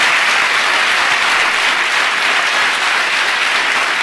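Audience applauding, a steady dense clapping that eases slightly near the end.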